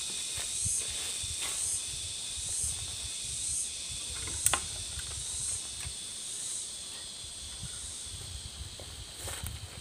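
Insect chorus: a high, hissing drone that swells about once a second. Low rustling runs underneath, and there is a single sharp click about halfway through.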